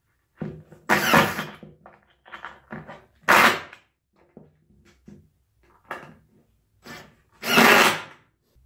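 Cordless drill driving screws through a wooden cabinet side into a shelf support, in three main runs of about half a second each, with shorter, lighter sounds between them.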